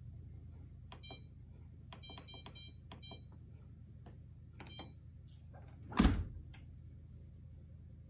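Maytag MBD8959SFH dishwasher control panel beeping as its touch buttons are pressed: one short beep about a second in, a quick run of four or five beeps around two to three seconds, and a pair near five seconds, each a keypress registering on the repaired panel. About six seconds in, a solid thud and a click as the dishwasher door is shut and latched.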